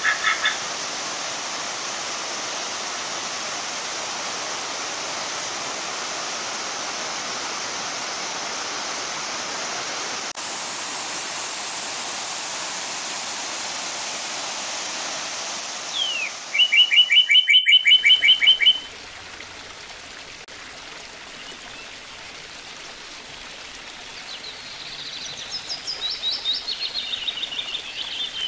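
Waterfall rushing steadily. About sixteen seconds in it gives way to quieter flowing water, with a loud, fast bird trill of even notes at the change. Near the end comes a second bird's trill that falls in pitch.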